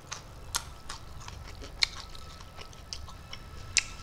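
Close-up mukbang chewing of a mouthful of food eaten by hand: a run of small wet mouth clicks and smacks, three sharper ones about half a second in, near the middle and near the end.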